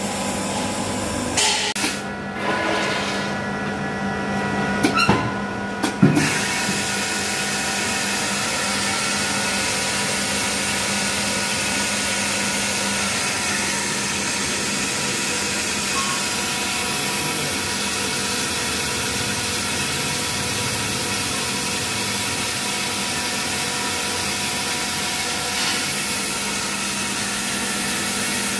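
Dry garlic peeling machine running with its blower on: a few knocks and clicks in the first six seconds, then a steady rush of air over a constant machine hum.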